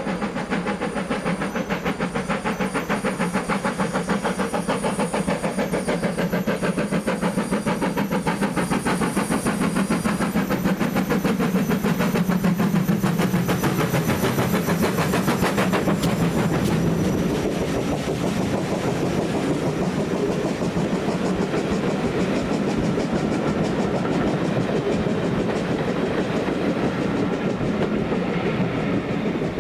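Steam locomotive 9351 and its train running past, with a rapid, even beat of exhaust and wheel noise under a steady low hum; loudest around the middle.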